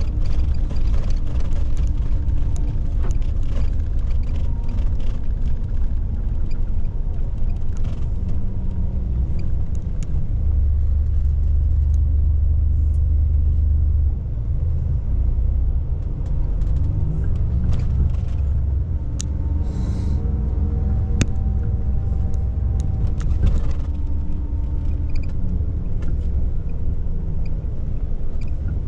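Inside a moving intercity coach: a steady low engine and road rumble, with the engine note rising and falling as the bus changes speed. Light clicks and rattles are scattered through it.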